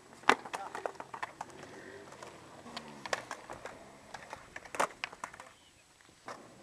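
Skateboard knocks: sharp clacks of a deck and wheels hitting the ground, loudest about a third of a second in and again near five seconds, with lighter taps in between.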